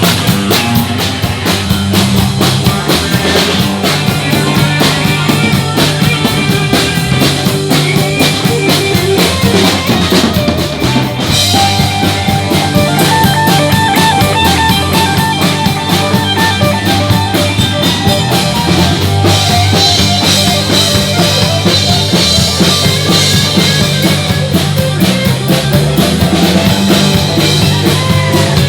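Live rock band playing an instrumental passage: drum kit keeping a steady beat with bass drum and rimshots under bass and electric guitar.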